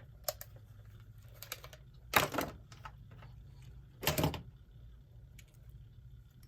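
Small clicks and scrapes of a quartz clock movement being handled and pried at as it is taken apart, with two louder bursts of scraping about two and four seconds in, over a faint low hum.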